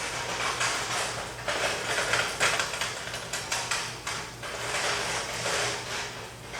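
Rustling, scraping and a run of sharp clicks from objects being handled, over a steady low hum.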